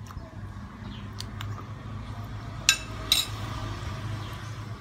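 Metal spoon clinking twice in quick succession against a plate of vegetables, a little over halfway through, over a steady low hum.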